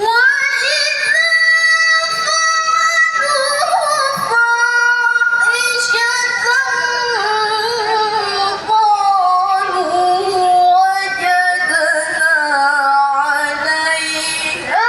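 A woman's voice reciting the Quran in the melodic tilawah style. It is one long phrase of held notes with quick ornamental turns, its pitch stepping down from high to low, with a short break for breath about four seconds in and again near nine seconds.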